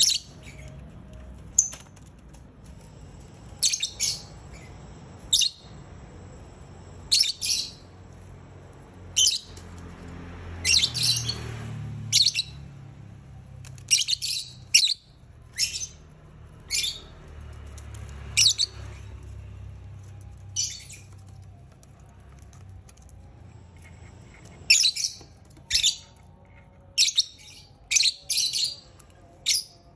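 Lovebirds giving short, shrill high chirps, singly and in quick pairs, every second or two, over a faint low rumble.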